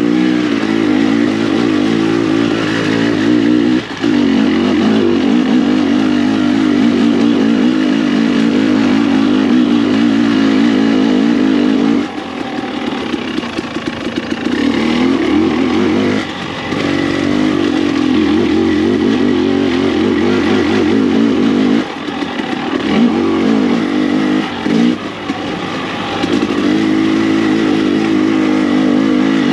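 Dirt bike engine running under throttle, its pitch wavering up and down as the throttle is worked. It eases off briefly about four seconds in, again for a few seconds around the middle, and once more a little before the end.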